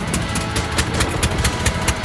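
A 22-horsepower, 597 cc lawn tractor engine running on a newly fitted carburetor, with sharp, slightly uneven beats about four or five a second. It runs but sounds rough.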